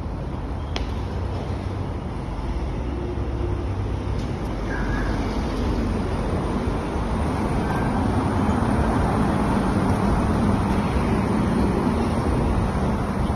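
Steady low rumble of outdoor street background noise, like distant road traffic, growing a little louder about halfway through.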